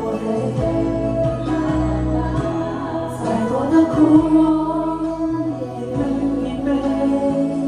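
Music with singing: a song with held vocal notes over a steady bass line.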